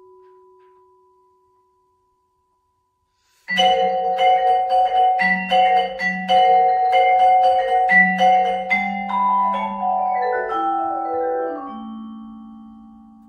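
Vibraphone struck with mallets. A single soft note rings and fades, then after about two seconds of silence comes a loud, fast passage of repeated chords. It gives way to a descending run of notes that ring on and slowly fade.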